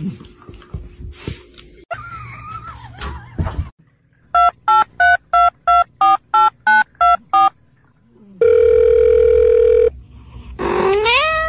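Electronic telephone-style beeps: ten short even beeps at about three a second, then one loud steady beep lasting about a second and a half. A short wavering sound comes before them, and a rising, gliding sound follows near the end.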